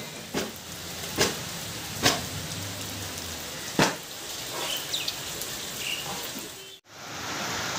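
Steady heavy rain falling, with four sharp taps standing out over it in the first four seconds. The sound drops out for an instant about seven seconds in, then the rain carries on.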